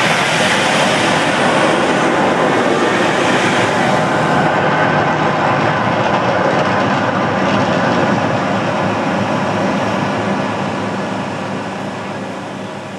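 The Mirage volcano's fire-and-water eruption: a loud, steady rushing noise of gas flames and fountain jets that fades away over the last few seconds as the eruption dies down.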